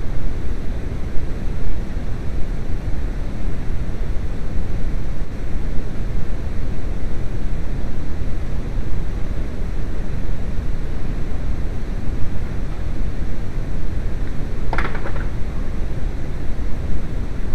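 Loud steady noise added in editing to mask shop radio music, an even wash heaviest in the low end. A single short, sharper sound stands out about fifteen seconds in.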